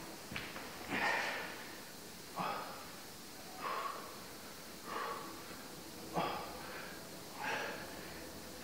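A man breathing hard after exercise: a short, sharp exhale about every 1.3 seconds, six in a row.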